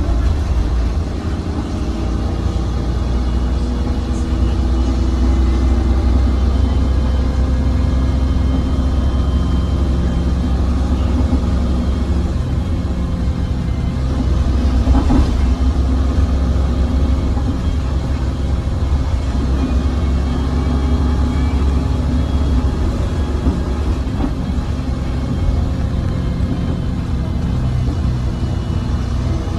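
Bus engine and road noise heard from inside the cabin of a 2005 MAN 15.220 bus under way: a steady low rumble with a constant engine drone, and a single clunk about halfway through.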